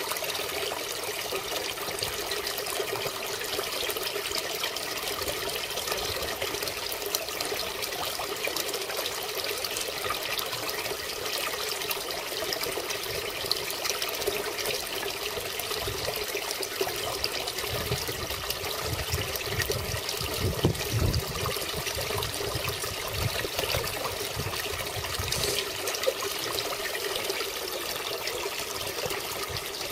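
Steady splashing and trickling of water falling into a koi pond from a spout and an inflow at the pond's edge. A stretch of low rumbling comes partway through.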